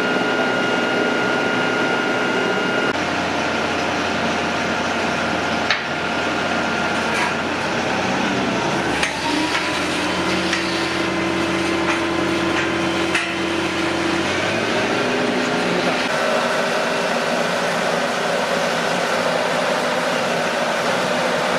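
Boatyard travel lift running steadily, its engine and hydraulics giving several held whining tones that shift in pitch a few times, with a few sharp metallic clanks.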